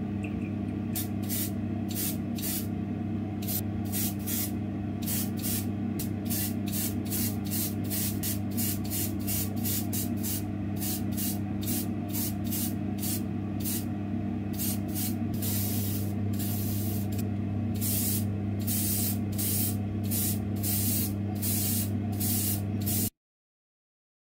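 Airbrush spraying clear coat in many short bursts of hiss, a few held longer, over a steady low hum. It all cuts off suddenly near the end.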